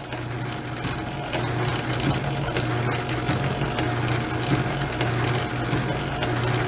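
Small antique metal shaper running under power and taking a light cut in a metal block on automatic cross feed. The ram reciprocates with a steady hum, and light clicks repeat through it.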